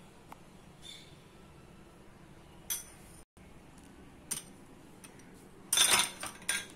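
Light clinks of a glass bowl and a steel mixer-grinder jar as red chilli powder is added: a few single taps, then a quicker, louder cluster of clinks and scrapes near the end.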